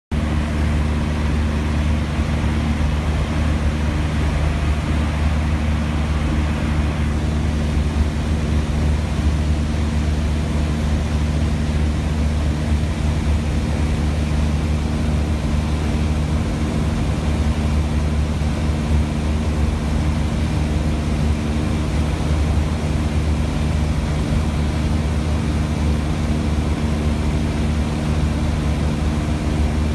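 Light high-wing airplane's piston engine and propeller running at a steady drone, heard from inside the cabin, with a constant hiss of rushing air.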